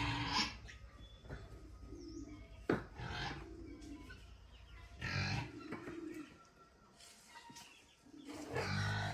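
Pigs grunting and squealing in short, rough calls, about four times, a few seconds apart. A single sharp knock sounds between the first two calls.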